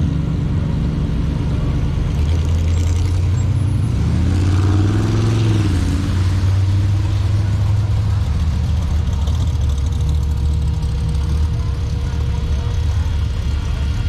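Low, steady rumble of hot rod engines as cars drive out of the show. About four seconds in, one engine's note rises and then falls back within a couple of seconds.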